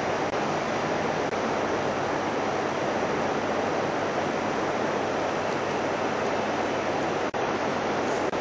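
Steady, even hiss of background noise, with a brief dropout about seven seconds in.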